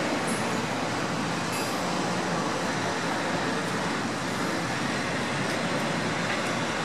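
Steady, even background noise of road traffic.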